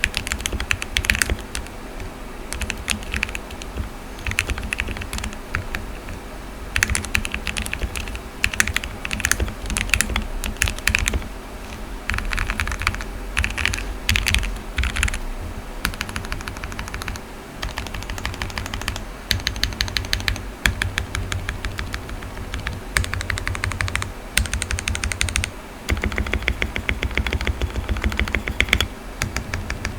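Typing on a custom 60% mechanical keyboard with lubed Gateron Phantom Brown tactile switches, Fipink keycaps, a tape mod and PCB foam: a fast, dense run of key clacks with short pauses every few seconds.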